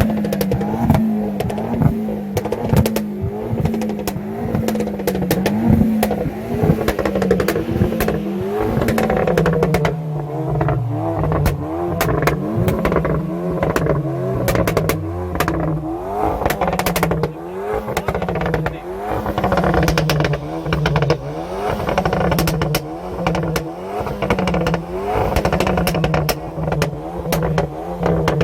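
Modified car engine revved over and over in quick blips, its pitch climbing and dropping about once a second, with sharp exhaust pops and crackles throughout.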